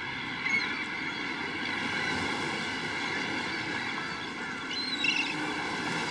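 Penguin colony ambience: a steady wash of noise with a few faint short bird calls, one about half a second in and a couple around five seconds in.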